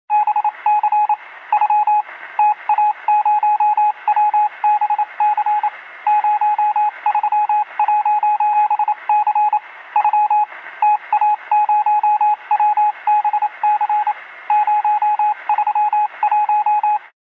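Morse code: a single high beep keyed on and off in a rapid, uneven string of short and long pulses over a steady radio-like hiss. It cuts off abruptly near the end.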